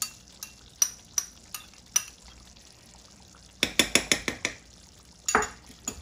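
Metal spoon clinking on dishes while a little butter is scooped and knocked off into a pot of stew: a clink about every half second at first, a quick run of clinks past the middle, and one scrape near the end.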